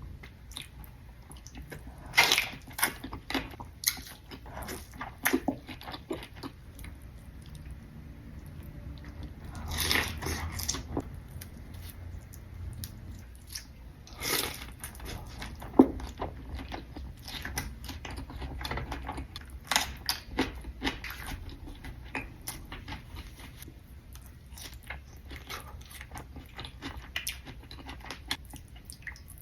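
Close-miked eating of spinach and artichoke food: crunchy bites and chewing, with short crackles and wet mouth clicks. The loudest crunching comes in clusters about two seconds in, around ten seconds and around fifteen seconds.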